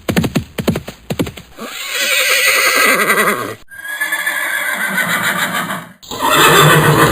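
Horse neighing: a fast run of short pulses, then three long quavering whinnies, the last one shorter.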